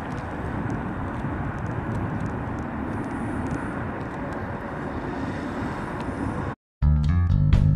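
1977 Oldsmobile Cutlass Supreme Brougham's 350 Rocket V8 running steadily as the car drives slowly away. The sound cuts off suddenly near the end, and music with drums and guitar starts.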